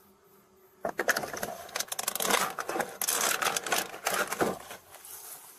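Rustling, scraping and small clicks and knocks as a police officer handles items while searching a car's interior, picked up close by a body camera's microphone. The handling starts about a second in and dies down shortly before the end.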